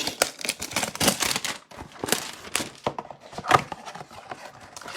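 Packaging being handled and opened: irregular crinkling and rustling with quick scrapes and clicks, like a card hanger box and its wrapping being torn into.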